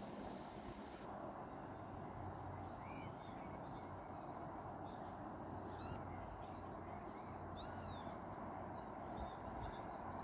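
Wild birds calling in the background: many short, high-pitched chirps and calls, the clearest an arched call about eight seconds in, over a steady low outdoor rumble.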